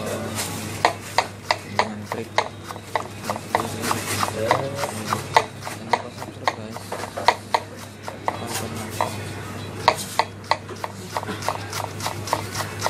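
Kitchen knife chopping spring onions on a cutting board: quick, even knocks about three a second, pausing briefly now and then. A steady low hum runs underneath.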